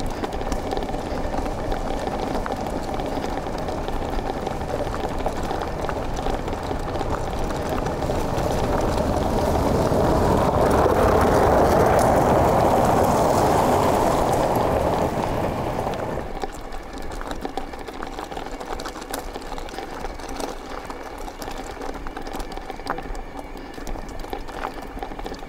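A car passing on a gravel road: a wash of tyre noise on loose stones that grows to a peak about halfway through and dies away by about two-thirds in. Around it is a steady rumble and rattle of riding over stones.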